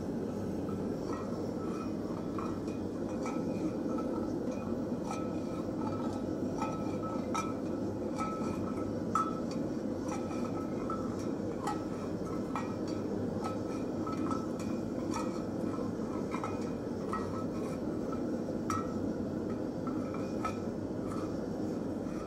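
Tongs clinking lightly and irregularly against a carbon steel skillet, about once or twice a second, as vegetable oil burns off in the pan during seasoning. Under it is a steady rush from the lit gas forge and the oil flames.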